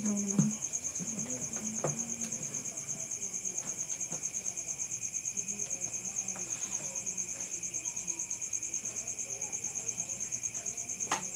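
Crickets chirping: a steady, high-pitched trill in rapid, even pulses, with a few faint clicks.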